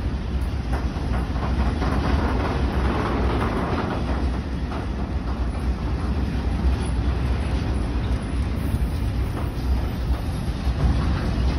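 A long freight train of bogie hopper wagons rolling steadily past: a continuous rumble of steel wheels on rail, with occasional light clicks.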